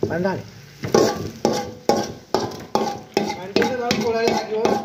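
Steel ladle stirring and scraping onions frying in a large steel wok, knocking against the pan about twice a second while the food sizzles.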